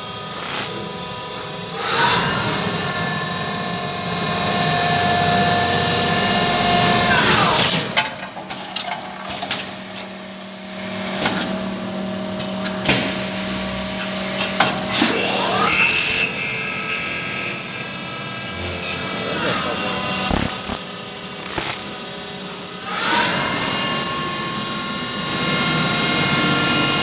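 CNC machine with an autoloader running its cycle: a motor whine that rises in pitch as it spins up and falls as it spins down, several times over, with sharp mechanical clacks in between.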